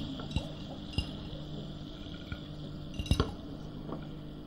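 A few light clinks of a metal spoon against a small glass jar and a china plate, the loudest about three seconds in, over a steady low hum.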